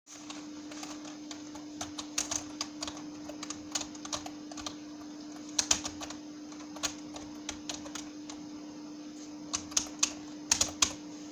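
Typing on a computer keyboard: irregular keystroke clicks, some in quick clusters, with a steady hum underneath.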